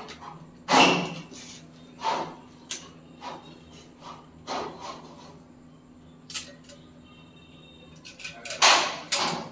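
Clicks and knocks of a plastic toilet-seat mounting bracket being handled and set down onto a ceramic toilet bowl. About eight sharp knocks come at uneven intervals, loudest about a second in and in a quick cluster near the end.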